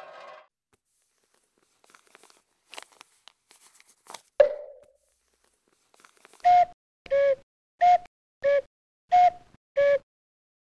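Cartoon sound effects: a few soft clicks, a single loud bonk about four seconds in, then six short beeping tones that alternate between a higher and a lower note, about one and a half a second.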